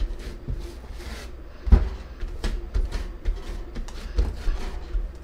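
Hands punching down a risen ball of ube pandesal dough on a countertop, pressing the air out with the palms: a run of soft, dull thuds, the loudest about a second and a half in.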